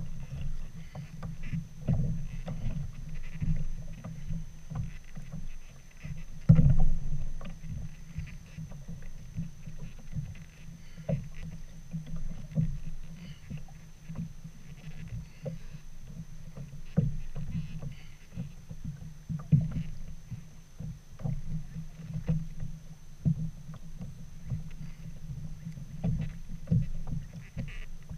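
Small waves lapping and slapping against the hull of a Hobie Outback fishing kayak: an irregular run of low knocks and sloshes, with one louder knock about six and a half seconds in.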